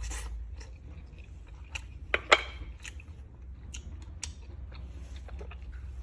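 Cooked crab being cracked open and eaten: one sharp crack of shell about two seconds in, among smaller clicks and chewing.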